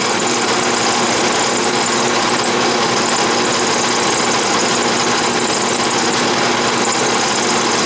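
Atlas metal lathe running steadily with a small end mill in its spindle, milling a keyway into an oiled metal workpiece held in the lathe's milling attachment: the motor and drive hum along with the continuous rasp of the cutter.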